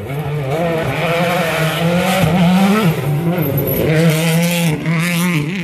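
A World Rally Car's 1.6-litre turbocharged four-cylinder engine at full throttle as the car passes at speed, its pitch dropping briefly at quick gear changes and climbing again, loudest in the middle.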